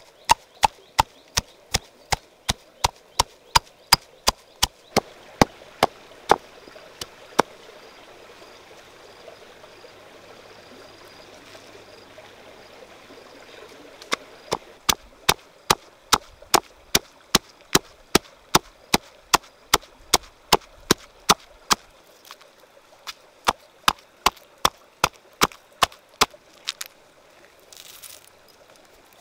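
Stone pestle pounding herbs and chillies in a stone mortar: sharp, even knocks at about three a second, in three bouts with pauses between. Near the end a short rush of coarse salt is poured into the paste.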